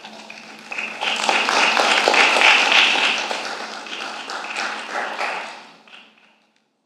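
Congregation applauding, a dense patter of many hands clapping. It starts about a second in, swells, then fades out near the end.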